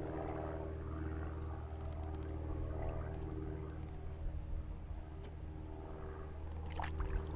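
A steady low droning hum with a few constant pitched tones, and a brief sharp knock about seven seconds in.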